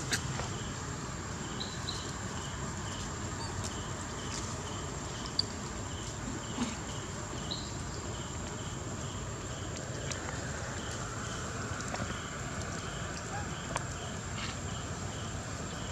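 Forest roadside ambience with insects: a steady high drone and a short chirp repeating about twice a second over a low background rumble, with a few faint clicks.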